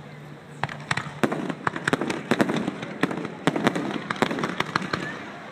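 Fireworks display: a rapid, irregular run of sharp cracks and pops from crackling shells, growing denser after about a second.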